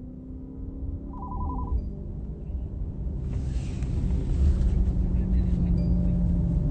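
Car cabin road and engine rumble, building up as the car gets moving. About a second in, a short pulsing electronic ring or beep sounds.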